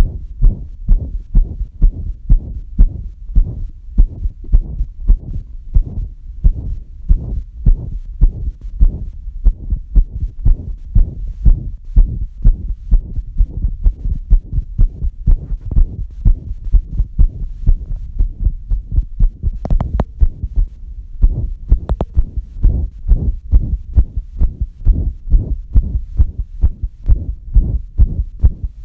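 A heartbeat: a steady, even rhythm of low thumps. Twice, about two-thirds of the way through, a brief sharp click cuts in.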